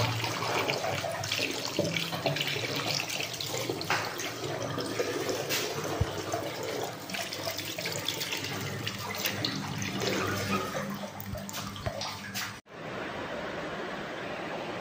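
Water running from a tap into a sink, splashing over a hand that rinses Indian gooseberries under the stream. It cuts off abruptly near the end.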